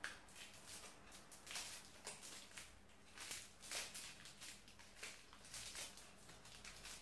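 Faint rustling and crinkling of a small plastic bag as hands twist and wrap a ball of naem mixture in it, in short irregular rustles about every half second to second.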